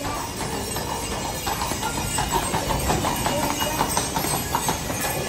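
Hooves of a pair of carriage horses clip-clopping on a paved street as a horse-drawn carriage passes close by. The hoof strikes grow louder and denser about a second and a half in.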